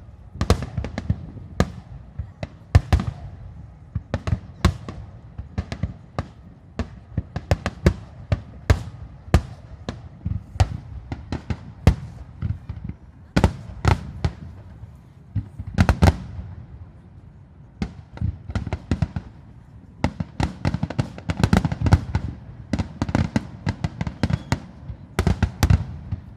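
Starmine fireworks barrage: aerial shells bursting in rapid, irregular succession, a dense run of sharp bangs with deep booms beneath them.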